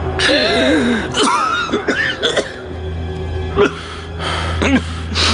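A man choking and gasping for air, with short strained coughs and rasping cries, as he is strangled. Tense background music with a low steady drone plays underneath.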